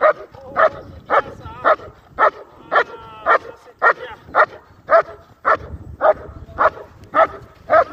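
German Shepherd barking steadily, about two barks a second, at a helper holding a bite sleeve: the rhythmic barking of IGP protection work. A short whine comes between barks about three seconds in.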